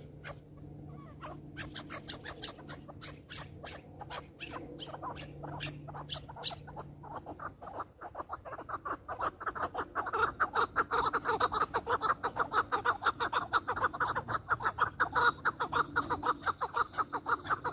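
Chukar partridge calling: a series of short clucking notes, spaced at first, then about halfway through a faster, louder run of rapid calls that keeps going.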